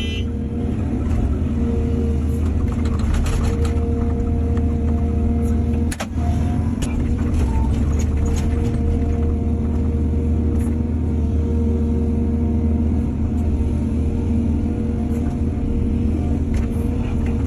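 Heavy diesel earthmoving machinery running steadily under load, with a steady engine hum and whine and scattered clanks and knocks. There is one sharp knock about six seconds in.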